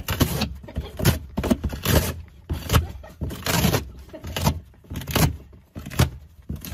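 Cardboard box being torn open by a dog, in a string of short ripping, crunching tears about every half second.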